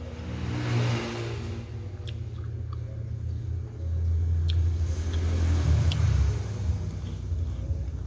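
Low rumble of passing road vehicles, swelling twice, with a few light clicks from eating.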